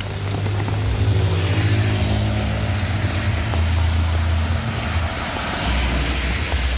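A motor vehicle's engine running as it passes on a wet road, with tyres hissing on the water, over the steady noise of heavy rain.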